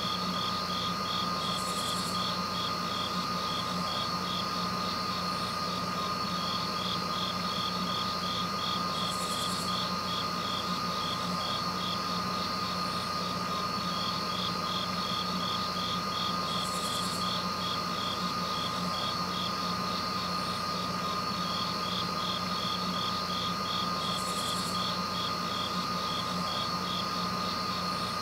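A steady looping ambient bed: a low hum and a steady high tone under a fast, even pulsing trill, with a short high hiss that comes back about every seven and a half seconds.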